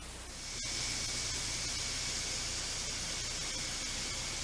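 Steady background hiss with a faint high whine and a low hum underneath. It steps up in level after a brief dropout about half a second in.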